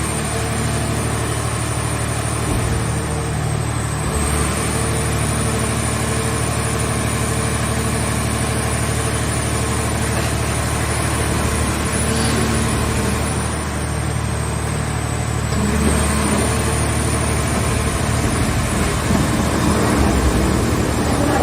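Scrap car-shell baler's engine running steadily, with a faint high whine that sags in pitch twice.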